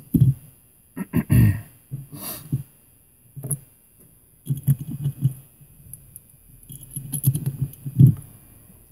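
Small metal deadbolt cylinder parts clicking and knocking as the lock is reassembled by hand: irregular clicks and taps in short clusters, the loudest knock near the end.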